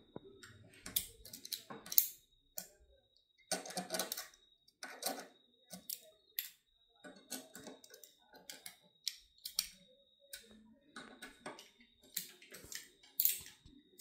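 Allen key tightening the screws of a Mankeel X5 electric scooter's handlebar clamp: irregular small metallic clicks and scrapes, a dozen or so scattered through the stretch.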